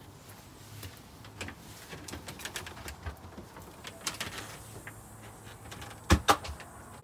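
A glass storm door and front door being opened and gone through, with faint clicks and rattles of the handle and latch, then two sharp knocks in quick succession about six seconds in as the door shuts.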